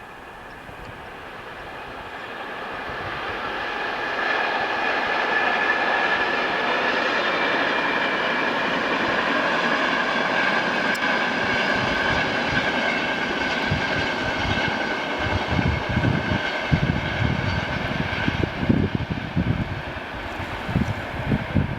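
A train approaching and running past, growing louder over the first four seconds, then a steady loud rolling noise with a high whine. In the last several seconds, gusts of wind buffet the microphone.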